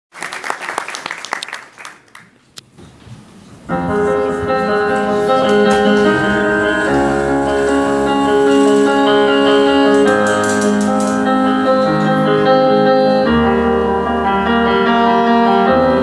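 Brief applause, then about four seconds in slow instrumental music begins: held piano chords that change every few seconds.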